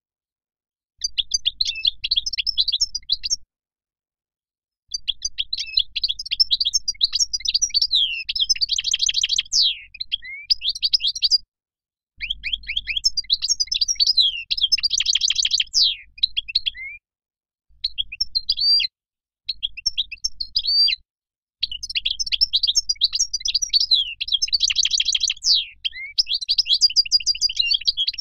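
European goldfinch singing: phrases of rapid, high twittering and trills several seconds long, broken by pauses of about a second.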